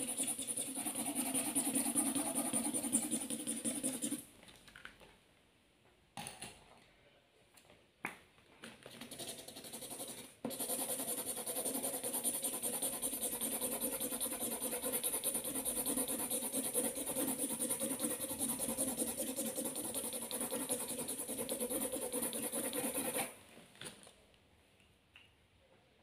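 Felt-tip marker scribbling on paper in rapid back-and-forth strokes, colouring in a drawing. The scribbling stops about four seconds in, returns in a few short strokes, runs steadily again from about ten seconds in, and stops a few seconds before the end.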